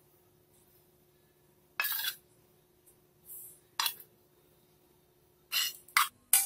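A metal spoon scraping and clinking against a small pan as tomato sauce is spooned out. There are short separate scrapes about two and four seconds in, then three in quick succession near the end.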